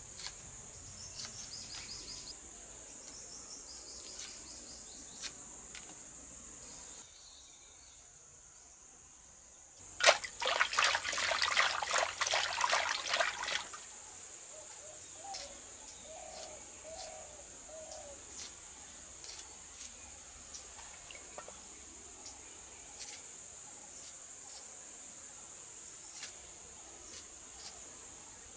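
Steady high-pitched chirring of crickets, dropping out for a few seconds partway through, with small scattered clicks and taps of hands at work. About ten seconds in, a few seconds of loud clattering as garlic cloves are rattled in a clay bowl.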